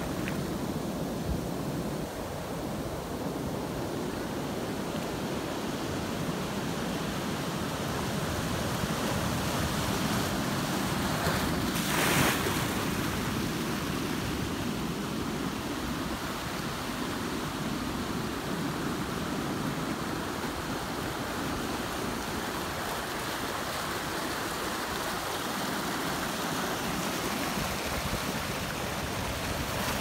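Ocean surf breaking and foaming water washing through narrow channels in rocky tide-pool ledges: a steady rushing wash, with a brief louder rush about twelve seconds in.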